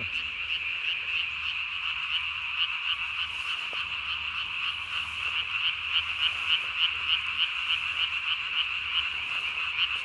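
A dense chorus of many Japanese tree frogs calling together: rapid, overlapping high-pitched pulses in a steady wall of sound. These are males calling for mates in the spawning season.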